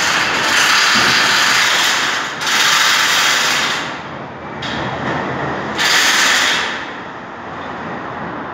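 Hand-held power tool worked at the hoist's mast rack in three bursts, the first two long and back to back and a shorter one about six seconds in, each a loud hissing rush, over a steady lower background noise.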